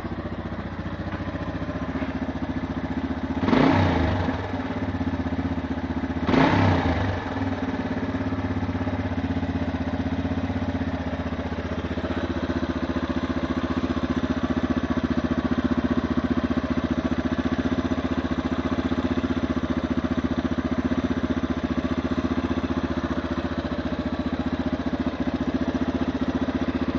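2008 Yamaha TT-R230's single-cylinder four-stroke engine running warm at a raised idle, revved briefly twice in the first seven seconds, with a rattling, ticking noise that only comes once the engine is warmed up. The owner has found the valves in spec and the cam chain tensioner fine, so the source of the rattle is unknown.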